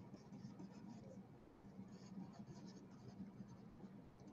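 Faint, irregular scratching of a stylus writing on a pen tablet, in short strokes, over a faint steady low hum.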